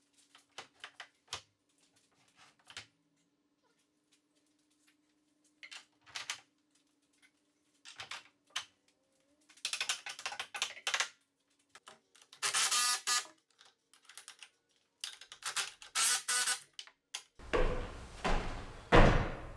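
Scattered clicks and knocks of metal hardware and timber as a wooden staircase is handled and fitted at its metal pivot brackets, with a few short, louder rattling bursts. Near the end come heavier thuds of boots on the wooden steps.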